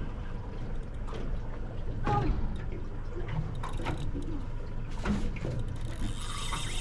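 Water lapping and splashing against the hull of a small boat, irregular, over a steady low rumble.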